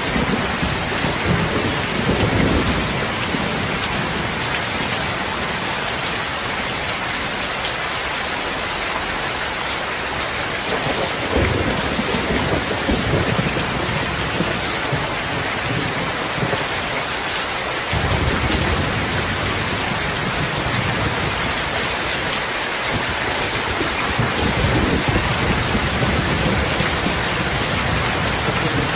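Heavy rain falling as a steady hiss, with low rolls of thunder that swell and fade several times.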